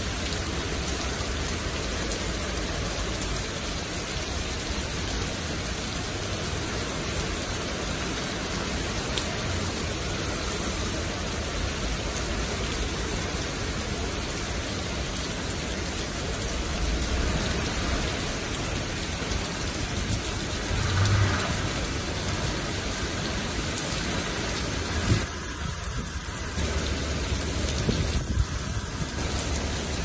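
Heavy rain pouring steadily onto pavement and parked cars, with a few low rumbles in the second half.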